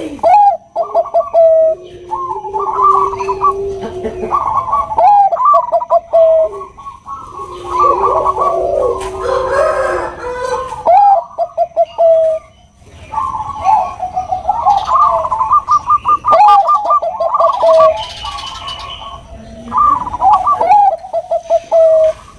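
Bangkok-strain zebra doves (perkutut) cooing, with their calls overlapping. Each call is a quick stuttering run of notes that ends in a drawn-out coo, repeated again and again.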